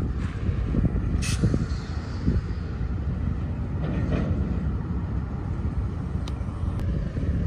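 Slow-moving freight train rolling past: a steady low rumble of wheels on rail, with a sharp clank about a second in and a few lighter knocks later.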